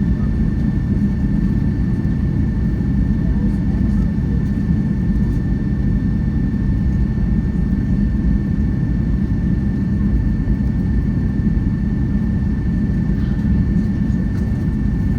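Steady low cabin rumble of a Boeing 757-200 on the ground after landing, with a thin steady whine above it.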